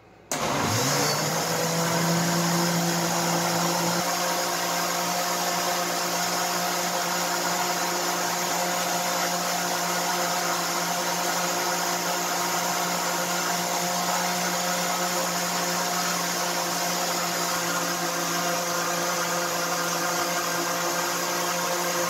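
Countertop blender switched on just after the start, its motor spinning up quickly and then running steadily as it blends a liquid cake batter of eggs, sugar, margarine and milk.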